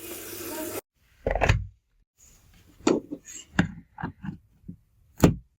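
A short hiss, then a series of separate knocks and clunks from objects being handled and set down as water is made ready to boil. The last clunk, near the end, is the loudest.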